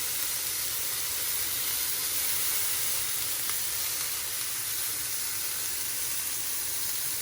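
Steak and shrimp kabobs sizzling on a hot stovetop griddle, a steady frying hiss.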